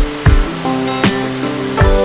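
Background music with held notes over a drum beat.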